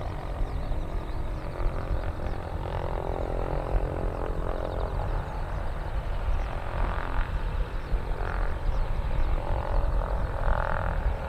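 Cessna 172P Skyhawk II's four-cylinder Lycoming piston engine and propeller running at low taxi power: a steady low rumble with an even engine hum above it. A few short, higher sounds come in during the second half.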